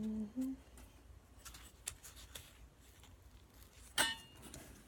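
Light handling noises of sticker sheets and a plastic pocket page: faint scattered clicks and rustles, with one sharp, briefly ringing click about four seconds in.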